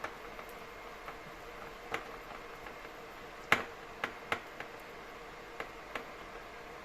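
A few separate light clicks and knocks of kitchen containers and utensils being handled, the loudest about three and a half seconds in, followed quickly by two more.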